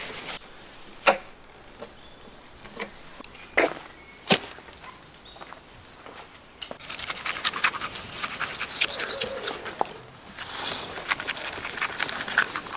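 Knife cutting through raw camel meat and fat: a few separate sharp knocks and ticks, then about six seconds of dense crackling as the blade works through the flesh.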